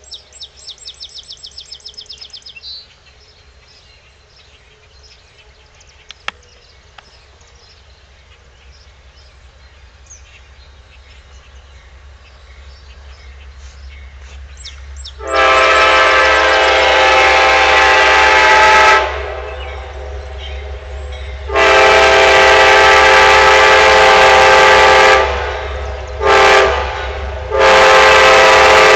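A well-tuned Nathan K5LA five-chime air horn on an Amtrak P42 diesel locomotive sounding the grade-crossing signal, two long blasts, a short one and a long one, starting about halfway through. Before the horn, the approaching train's rumble slowly grows louder.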